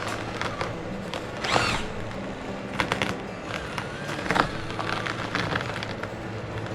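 Micro RC crawler's small electric motor and gears whining steadily as it climbs, with scattered clicks and knocks of the tyres and chassis on rocks. A short high chirp sounds about one and a half seconds in.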